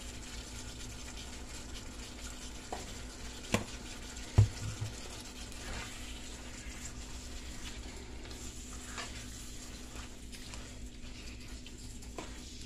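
Shrimp and sausage in tomato sauce sizzling quietly in a frying pan while a spoon stirs it, with scattered light ticks. A sharp click about three and a half seconds in and a dull knock about a second later are the loudest sounds.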